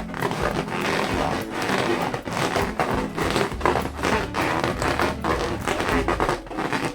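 Hands rubbing and tapping latex balloons: a dense, rapid run of rubbing, squeaks and taps, with music underneath.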